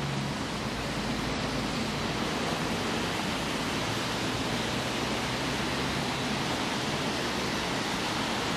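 Traffic on a wet road: a steady hiss of tyres on wet asphalt, with a faint low engine hum underneath.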